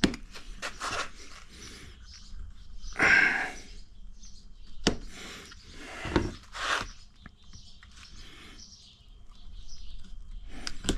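A knife cutting through the rubber strip in a truck's roof channel, down toward the metal underneath, in several short scraping strokes with scattered clicks. Faint bird chirps sound in the background.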